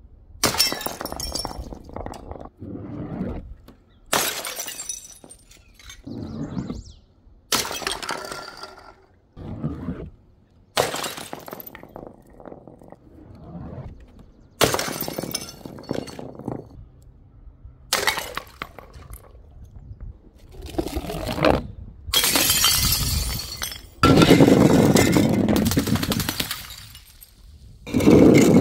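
Glass bottles shattering one after another, about a dozen breaks each with a sharp crash tailing off into tinkling fragments. Near the end the breaking turns into a longer, louder continuous smash.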